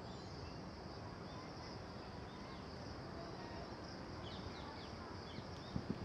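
Faint outdoor ambience: a steady high insect drone with a few short chirps from small birds, clustered about four to five seconds in, over a low rumble.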